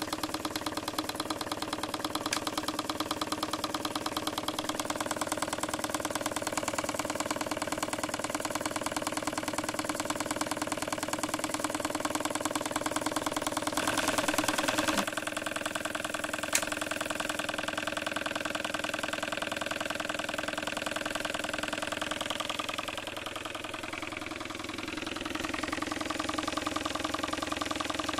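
Small model steam engine running steadily with rapid, even exhaust beats, its flywheel belt-driving a stepper motor used as a generator. A louder rush of noise comes briefly about halfway through, and the sound dips and wavers a few seconds before the end.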